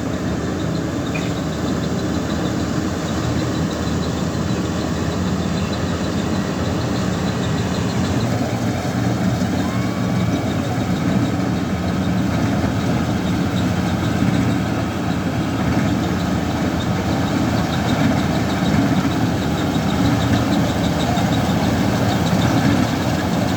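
World full-feed combine harvester running steadily, its engine and machinery making a continuous loud drone without pauses.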